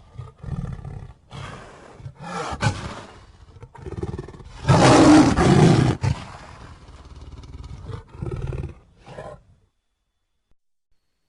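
King Ghidorah monster roar sound effects: a series of separate growling roars, the longest and loudest about halfway through, then falling silent near the end.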